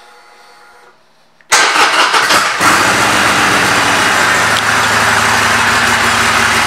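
2016 Harley-Davidson Roadster's air-cooled 1200 cc V-twin engine starting about a second and a half in: after about a second of uneven firing it settles into a steady, loud idle.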